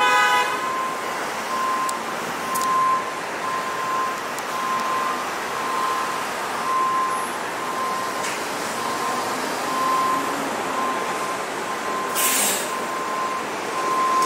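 Heavy city traffic at an intersection: a steady hum of engines and tyres, with an electronic beep repeating about one and a half times a second. About twelve seconds in, a heavy vehicle's air brakes give a short hiss.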